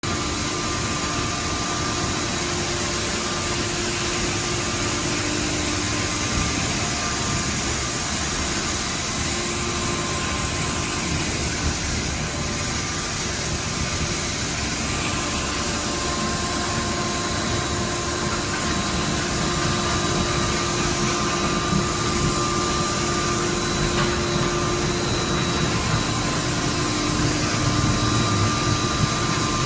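Steady machinery noise of a running PP/PE plastic film pelletizing line, a constant hum and rush with a few faint whining tones that come and go.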